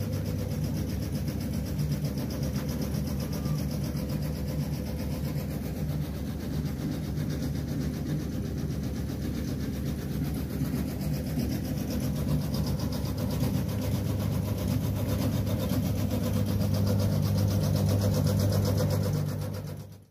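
An engine running steadily at idle, a low even hum with a fast regular pulse, fading out near the end.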